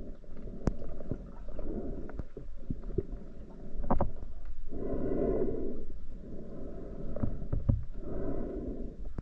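Muffled underwater sound from a camera in a waterproof housing: water noise that swells and fades in surges about a second long, with scattered sharp clicks and knocks.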